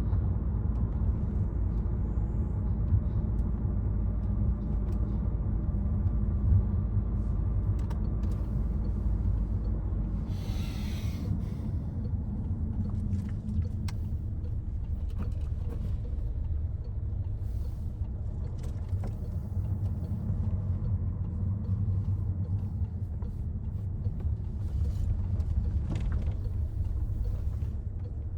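Citroen C5 Aircross driving through city traffic: a steady low rumble of engine and road noise. A brief hiss sounds a little over ten seconds in, and the deepest part of the rumble eases after it.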